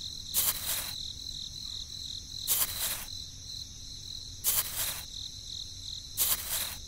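A small metal scoop scraping and digging into damp sand, four times at roughly two-second intervals. Under it runs a steady, high-pitched chirring.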